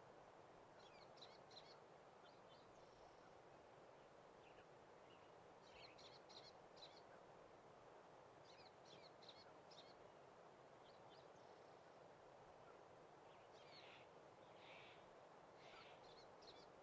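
Faint birdsong: short bursts of quick high chirps, about four phrases a few seconds apart, over a faint steady hiss.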